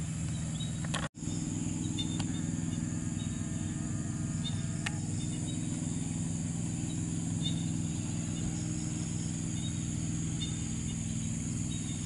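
Steady high insect drone with a steady low buzzing hum beneath it. The sound cuts out for an instant about a second in.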